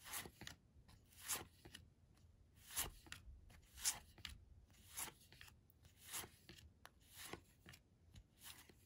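Faint, soft swishes of thin cardboard mini baseball cards being slid off a hand-held stack one at a time, about eight times, roughly once a second.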